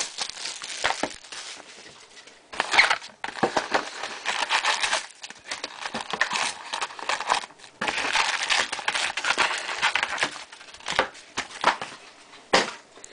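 Foil trading-card packs crinkling and rustling as a cardboard hobby box is opened and the packs are pulled out and stacked on a table, with scattered taps and scrapes.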